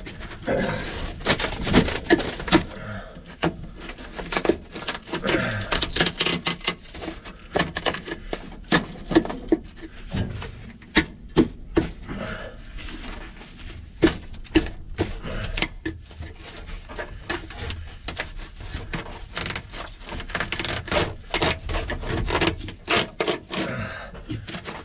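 Screwdriver scraping and prying at a brittle old rubber intake hose stuck on a metal elbow, in irregular clicks, scrapes and crackles as the perished rubber breaks away.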